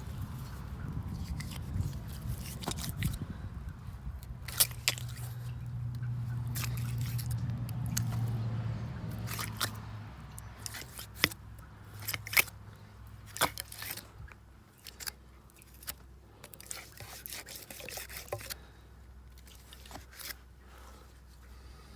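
Scattered clicks, knocks and wet dripping from the old, iron-clogged well pump and its drop pipe being handled, over a low steady hum that fades about ten seconds in.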